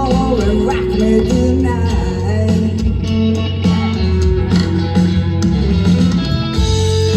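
Rock band music led by guitar over a steady bass line, with some singing.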